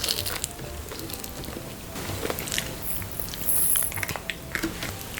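Close-up eating sounds: irregular chewing and crunching, with small clicks and crackles.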